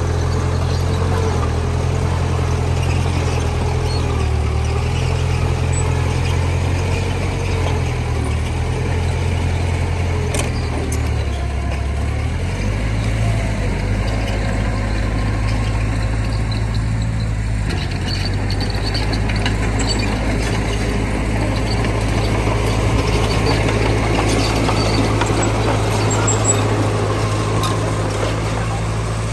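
Heavy diesel engine of earthmoving machinery running steadily, its low note changing about twelve seconds in.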